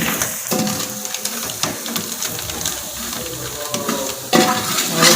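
Biryani masala frying in a pot, a steady sizzle with occasional clicks of a spoon stirring it. The sound grows louder about four seconds in.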